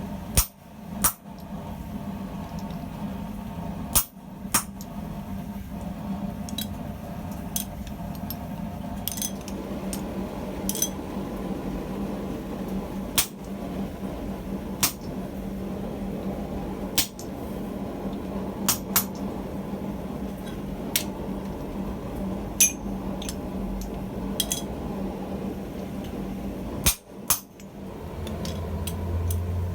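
Hand hammer striking hot steel on an anvil while forging a claw hammer head: single sharp, ringing blows at a slow, uneven pace, one to three seconds apart, over a steady low hum.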